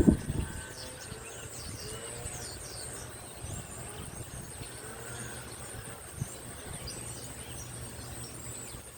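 Summer outdoor ambience: insects buzzing steadily at a high pitch, with birds chirping in short falling notes and a low steady hum under them. A brief bump at the very start.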